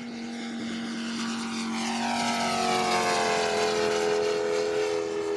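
Radio-controlled scale Hawker Sea Fury model flying past, its engine and propeller growing louder and then sliding down in pitch as it goes by.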